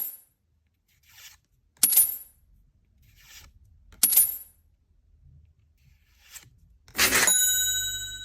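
Three sharp metallic clinks with a brief high ring, about two seconds apart, with softer rustles between them, then a louder ringing ding near the end that fades over about a second.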